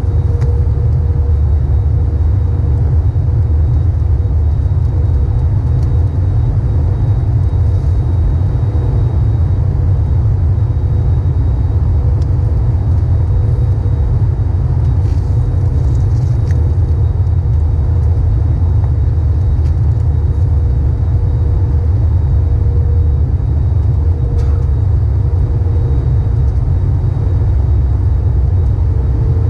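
In-flight cabin noise of an Airbus A321neo heard at a window seat: a loud, steady low rumble with a faint steady tone running above it.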